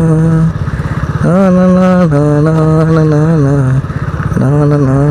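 A man singing a wordless tune in long, drawn-out held notes while riding a motorcycle. The engine runs steadily underneath, its fast pulsing showing through in the short gaps between the notes.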